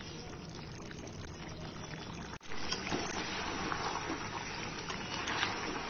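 Chicken pieces in their juices sizzling in a kadai over a high gas flame, a steady hiss with faint scrapes and ticks of a spatula stirring in the second half. The sound breaks off for a moment about halfway through and comes back a little louder.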